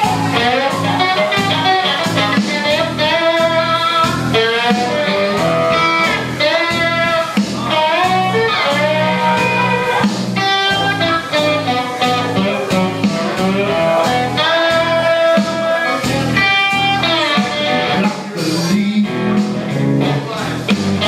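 Blues-rock music: a resonator guitar played live over a backing track of bass and drums, with a steady beat.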